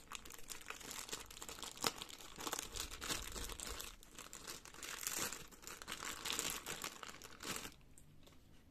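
Packaging of a replacement printer pickup roller module crinkling as it is unwrapped by hand: a dense, irregular crackle that stops about a second before the end.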